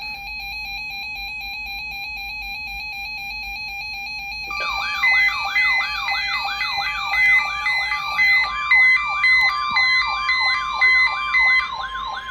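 Several NOAA weather alert radios sounding their alarms after decoding a Required Weekly Test. A single steady alarm tone is joined about four and a half seconds in by more receivers: a fast warbling siren-like sweep, a rapid beeping and another steady tone, all at once.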